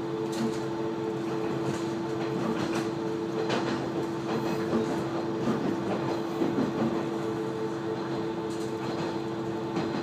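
KiHa 120 diesel railcar running along the line, heard from inside the cabin: a steady engine and drivetrain hum with two held tones over a rolling rumble, and now and then a sharp click from the wheels on the track.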